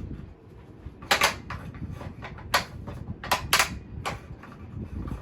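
Stiff height adjustment of a Kirby Classic III vacuum cleaner being worked by hand: several sharp clacks one after another, the loudest about a second in and around three and a half seconds in. The mechanism is dry and stiff, in need of oiling.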